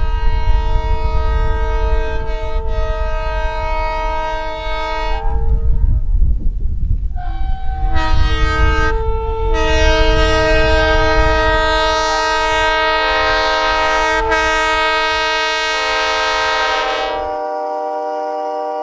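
Train's chord air horn sounding several notes at once over the low rumble of the running train: a long blast, a short one about eight seconds in, then another long blast. Near the end the rumble cuts out and only the horn chord remains.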